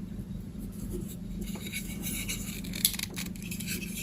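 Blunt knife cutting and scraping into the thick insulation of electrical cable: faint scratching with a few small clicks, over a steady low hum.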